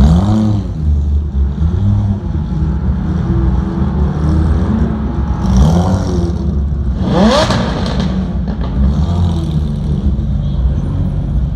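Ferrari 458 V8 engines running at low speed as the cars creep past, with a quick rev about seven seconds in.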